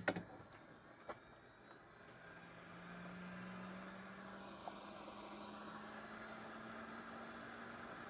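Hot air rework station blowing: a faint, steady fan hiss with a low hum that comes up about two seconds in. A couple of light clicks come just before it.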